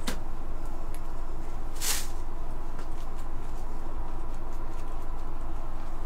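Small handling sounds of a wooden rubber stamp and ink pad: a click near the start and a short, sharp rustle about two seconds in, with a few faint ticks, over a steady low hum.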